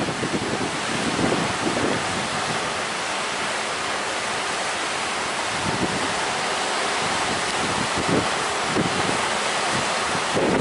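Strong wind blowing across the microphone over sea waves: a steady rushing noise.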